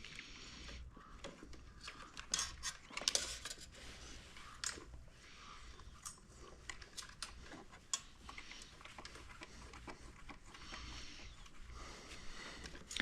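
Faint scattered clicks, taps and light metallic clinks of small parts and tools being handled, as a blinker is fitted to an electric scooter.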